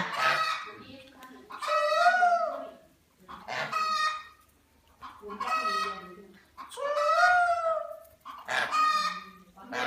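Backyard chickens calling and crowing: about six loud calls, each about a second long, come one after another every couple of seconds, some arching up and down in pitch and others level.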